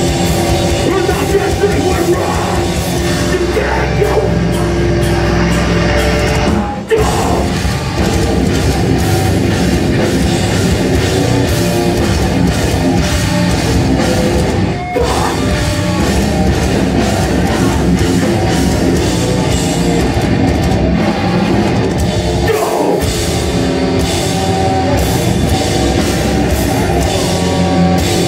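Metalcore band playing live at full volume: distorted electric guitars, bass and drum kit. The music breaks off for a split second twice, about seven and fifteen seconds in.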